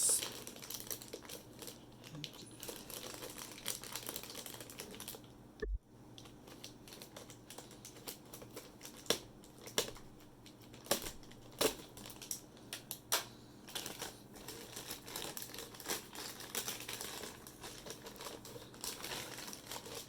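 Plastic wrapping crinkling and rustling as it is worked off a new mesh WiFi router, with scattered irregular clicks and taps from handling.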